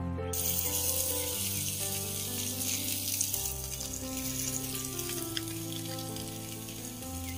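Masala-coated fish pieces sizzling on a small hot griddle over a wood fire, the hiss starting sharply about a third of a second in as the fish touches the pan. Background music plays throughout.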